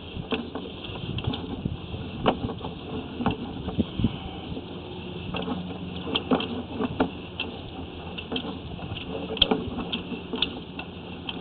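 Irregular clicks and knocks of a sewer inspection camera's push cable being fed up the line, over a steady low hum.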